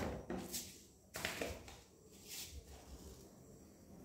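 A few short rustling and knocking handling sounds, about a second apart, as someone moves about at a kitchen counter.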